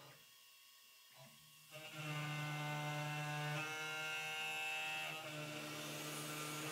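Isel CNC milling machine running as its end mill cuts into an aluminium plate: a steady motor hum that starts about two seconds in, with a higher whine added for a second or so in the middle. The first stretch is near silence.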